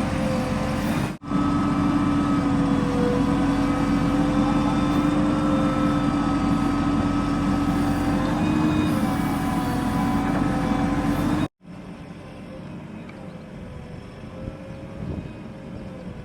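Heavy diesel machinery engine running steadily under load, with a held whine over the engine noise. It cuts off abruptly about a second in and resumes, then drops suddenly to a quieter engine sound near the end.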